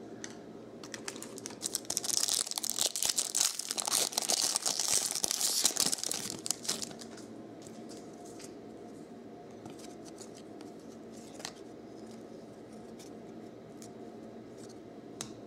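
A trading-card pack wrapper is torn open and crinkled for several seconds. After that comes quieter handling of the cards, with scattered light ticks and slides as they are flipped through.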